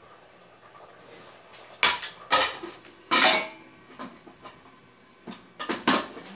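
Sharp clattering knocks and clanks in two bursts: a few strikes and a longer scrape about two to three and a half seconds in, then more knocks near the end.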